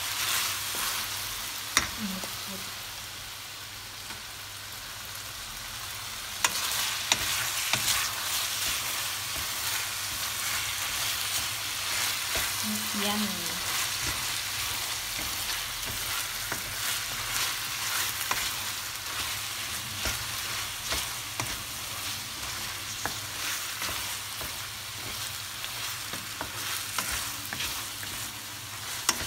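Chicken pieces frying in a stainless steel pan, sizzling steadily while a wooden spoon stirs them, scraping and clicking against the pan. There are a few sharper knocks of the spoon on the pan about 2 and 7 seconds in.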